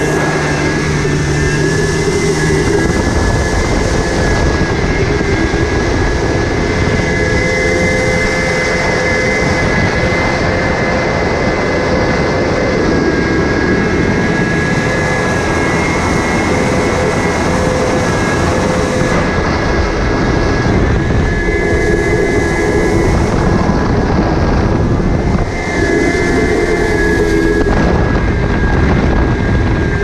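Kawasaki X2 jet ski's two-stroke twin engine running under way at speed, with water rushing past the hull. The engine note holds steady, its pitch shifting slightly as the throttle moves, with a brief dip about 25 seconds in.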